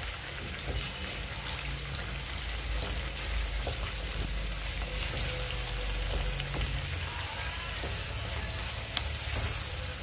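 Fermented soybeans (tungrymbai) sizzling steadily in oil in a metal kadai on a gas burner while being stirred with a wooden spatula. Faint scrapes and ticks of the spatula against the pan, with one sharper click near the end.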